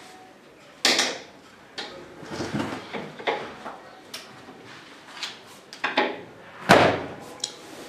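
Parts of a flat-pack shoe cabinet being handled and fitted together: a series of knocks and clattering, the loudest about a second in and another near the end.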